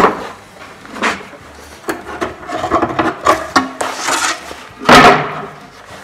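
Wooden knocks and scraping as a Langstroth hive body is set down on its screened bottom board and a wooden cover is laid on top. The loudest wooden clunk comes about five seconds in.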